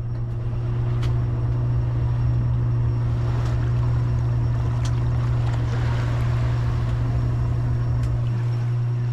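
Steady low drone of a running motor, with a few faint ticks and a light wash of water noise.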